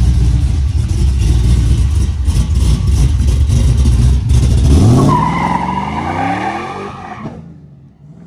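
A motor vehicle's engine, a loud low rumble at first. About five seconds in, the engine pitch climbs as it accelerates and the sound fades away.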